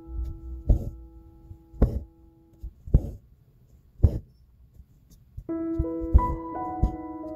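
Soft background piano music; the held notes die away in the middle and a new phrase comes in about five and a half seconds in. Over it come short dull taps, about one a second.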